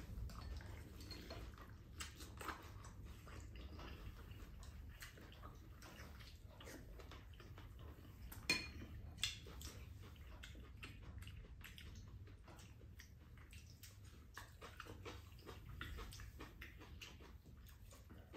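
Quiet mealtime sounds: chopsticks and spoons clicking against bowls and a pan, with scattered small clicks throughout and two sharper clinks about halfway through.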